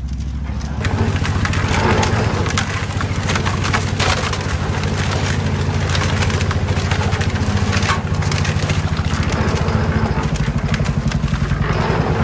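Small drum concrete mixer running with a steady low pulsing hum, its drum churning and tipping out concrete into a steel wheelbarrow with a gritty rattle of gravel and mortar. The rattle comes in about a second in.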